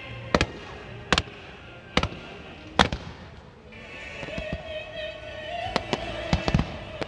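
Fireworks going off: four sharp bangs about a second apart, then a quicker run of bangs near the end, with music playing underneath.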